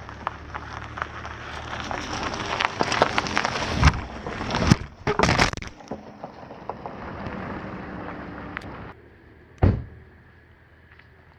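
A van's engine running close by, with crackling, crunching noise over it and several loud knocks about four to five seconds in. Near the end a single sharp thump comes, and the engine sound has dropped away.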